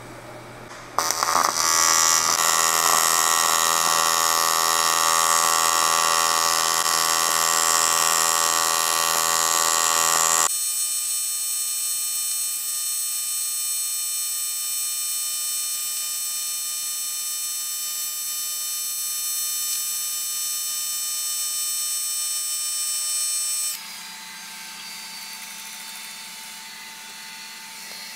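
TIG welding arc buzzing steadily as a weld is run around a turbo-housing adapter. It strikes about a second in, loses much of its lower tone about ten seconds in, and cuts off suddenly near the end, leaving a fainter steady hum.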